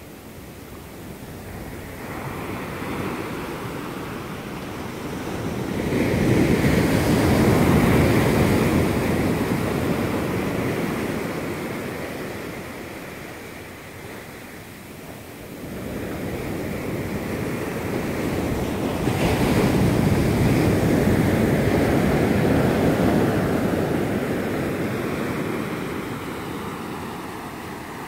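Indian Ocean surf: small waves breaking and washing up a sandy beach. The wash swells loud twice, once about six seconds in and again past the middle, each time fading off slowly.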